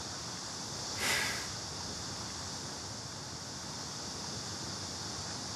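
Steady hiss of outdoor background noise, with one short breathy rush of noise about a second in.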